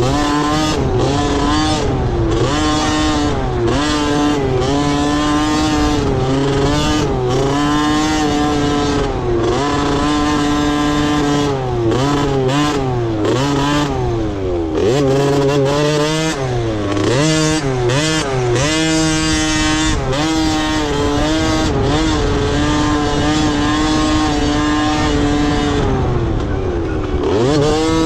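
Several motocross dirt bike engines revving and running around the track, their pitches rising and falling as the riders accelerate, shift and back off.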